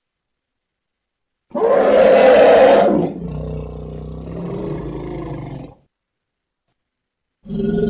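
Elephant giving a loud, harsh roar for about a second and a half. It trails off into a lower, quieter rumble that cuts off suddenly. Another loud call begins right at the end.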